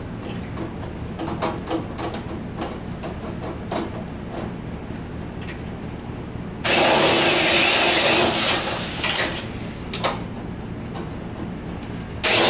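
Power drill drilling out pop rivets from a VW Beetle door: one burst of about two seconds a little past the middle and another starting near the end, with light clicks and taps between.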